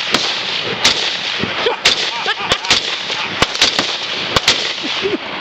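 SKS semi-automatic rifle firing in quick succession: about ten sharp shots at uneven intervals.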